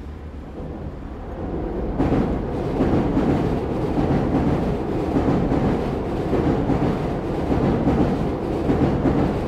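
Electric commuter train running on an elevated railway viaduct: a dense rumble and rattle of wheels on rails that builds over the first two seconds, then holds steady. Recorded with a Sennheiser MKH8040 ORTF pair alone.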